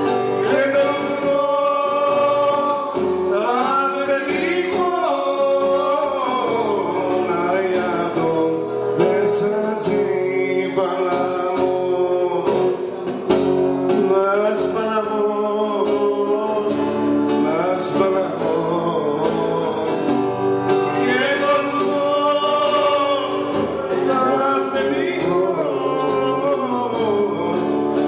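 A man singing into a microphone over a strummed acoustic guitar, played live, with held, wavering vocal notes.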